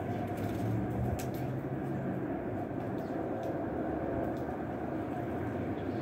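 Steady low background rumble, with a few faint ticks.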